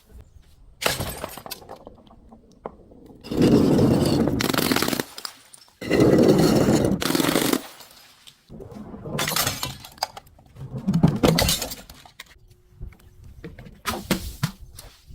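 Brittle objects being crushed and broken, a dense crunching and crackling that comes in several bouts; the two longest and loudest bouts come in the first half.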